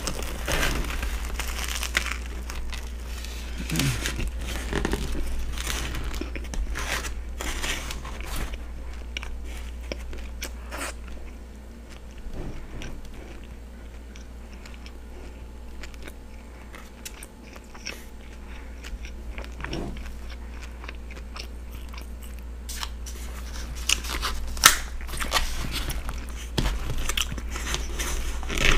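Close-up biting and chewing of a steak and cheese sub with onions and peppers: the crusty sub roll crunches and crackles, with wet chewing. The bites are busiest at the start and again near the end, with quieter chewing in between, over a steady low hum.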